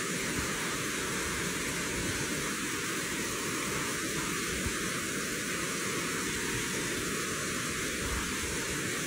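Rushing stream water pouring over stones: a steady, even rush with no breaks.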